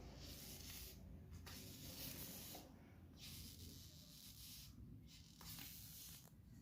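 Faint scratching and rustling in short stretches with brief pauses, as kittens' paws scrabble at a surface while they play.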